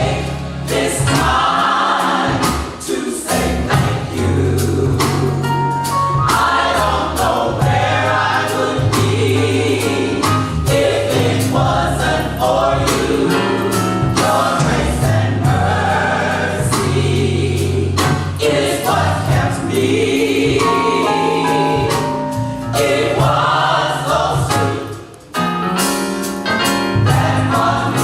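Gospel choir singing over a band, with a steady bass line and regular drum hits; the music drops away briefly near the end before coming back in.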